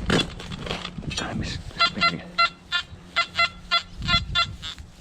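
Nokta Anfibio metal detector sounding a run of short, pitched, buzzy target beeps, about two to three a second, starting nearly two seconds in, after a brief rustle at the start. The signal is broken and really scratchy.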